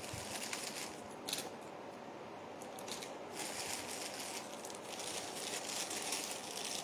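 Faint rustling and crinkling of clear plastic jewellery packets being handled, with a few brief crinkles standing out.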